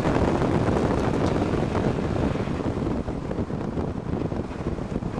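Wind buffeting the microphone of a camera mounted by the front-left wheel of a 2008 Subaru Impreza WRX STi driving at speed, mixed with tyre and road noise. It eases off somewhat after about three seconds.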